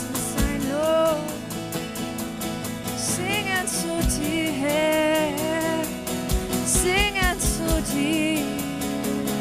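Worship band playing an instrumental passage between sung lines: sustained guitar and keyboard chords over a steady hi-hat beat, with a gliding lead melody line on top.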